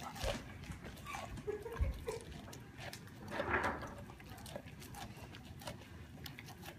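A dog chewing and licking at a corn cob held in a hand, with irregular wet smacks and crunching clicks.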